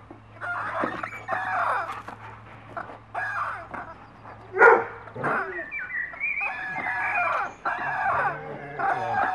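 Rubber squeaky duck being squeezed over and over in a golden retriever's jaws, giving a string of wavering, squawk-like squeaks. One sharper, louder squeak comes about halfway through.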